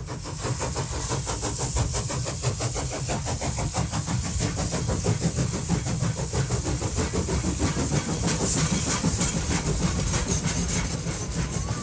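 Locomotive running, with a fast, even rhythmic beat over a low rumble and a steady hiss.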